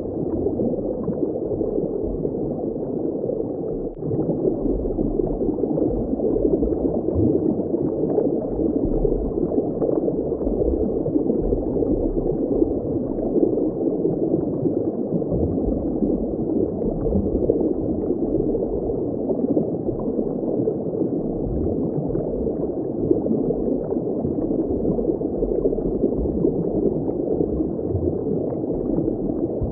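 Steady, muffled water ambience as heard underwater: a dense, even wash of bubbling water with uneven low rumbles and no high sounds.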